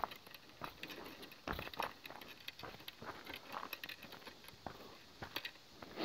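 Faint footsteps of a person walking on a gritty path over paving slabs, leaf litter and dirt, the steps landing unevenly.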